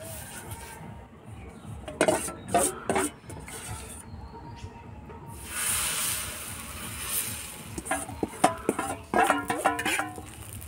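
Semolina batter sizzling as it is ladled onto a hot griddle, the hiss starting about five and a half seconds in. Metal utensils clink against the griddle before it, and a steel spatula clatters and scrapes near the end as the pancake is folded.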